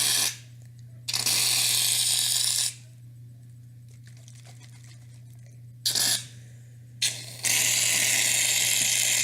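Aerosol can of shaving cream being sprayed: two long hisses of a second and a half and about two and a half seconds, with two short puffs between them.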